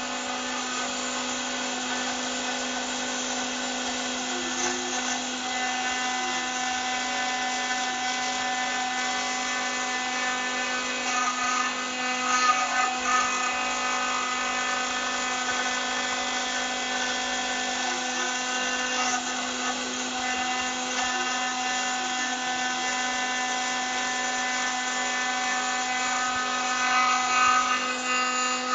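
CNC router spindle engraving lettering into an aluminium plate: a steady whine made of several held tones, with a few louder rough moments around twelve seconds in and near the end.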